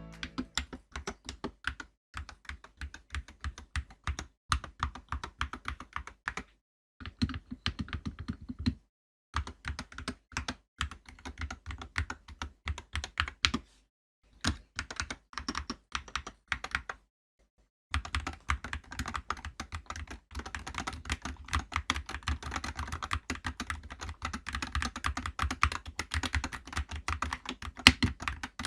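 Typing on an Akko MonsGeek FUN60 Pro 60% keyboard with pre-lubed Akko Glare Hall-effect magnetic switches and PBT keycaps: quick runs of plastic key clacks, broken by a few short pauses, steadier and denser in the last third.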